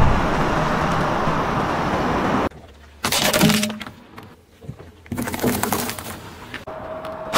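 Plastic objects cracking and breaking under a car tyre on asphalt, in a few short takes that start and stop abruptly. A steady hiss fills the first two and a half seconds.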